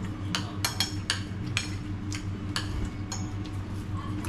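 Forks and spoons clinking against dinner plates as people eat, a quick run of sharp clinks in the first second or so and then a few more spread out. A steady low hum runs underneath.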